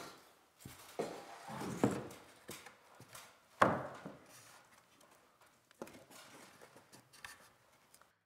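Wooden ceiling-beam framing being handled and pressed into place against a drywall ceiling: scattered knocks and rubbing of wood, the loudest a sharp knock about three and a half seconds in.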